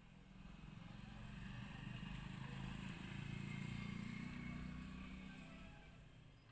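A motor vehicle passing by: its low engine hum grows louder, peaks midway and fades away again.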